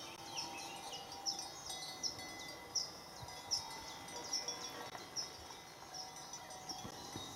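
Bells on the collars of grazing horses ringing, irregular high clinks about once or twice a second over a faint lingering ring, as the horses move.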